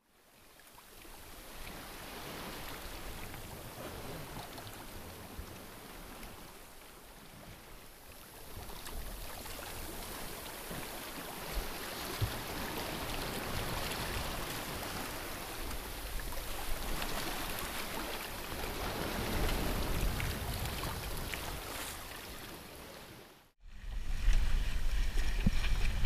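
Open-ocean waves and water rushing along the hull of a sailboat under sail in a rough sea, fading in at the start and swelling and easing. Near the end the sound cuts off and comes back louder, with wind buffeting the microphone and a low rumble.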